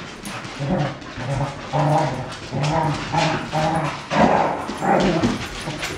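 A Cardigan Welsh corgi puppy and an adult corgi play-fighting, with a run of short, low growling calls coming about every half second.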